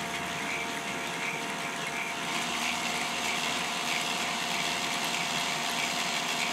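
Two K'nex electric motors running, turning the plastic gears and differentials of the shaft synchronizer with a steady whine over an even mechanical whirr; a second, lower hum joins about two seconds in.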